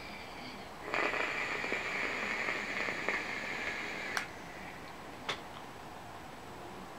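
Draw on an Aspire Atlantis sub-ohm vape tank fired at 18 watts from an IPV2 box mod: a steady airy hiss of air pulled through the tank's airflow and over the hot coil, lasting about three seconds and ending in a click. A second short click follows about a second later.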